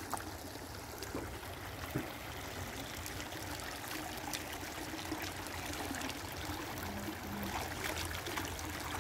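Shallow rocky stream running and trickling steadily over stones, with a faint click about two seconds in.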